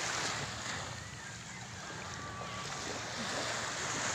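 Steady wash of small waves on a sandy beach, mixed with wind on the microphone.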